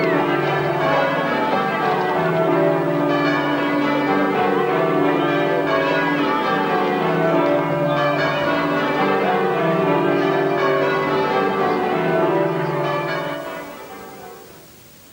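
Church bells being change-rung: a continuous peal of overlapping bell tones that fades away near the end.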